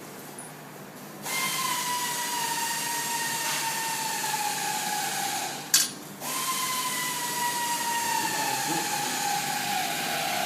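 Power drill driving screws in two runs of about four seconds each, its whine slowly dropping in pitch as the screw tightens, with a sharp click between the runs.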